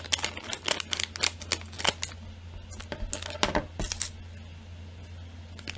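Scissors snipping across the top of a plastic snack bag, a quick run of sharp cuts for about two seconds, then a few crinkles of the wrapper about three seconds in.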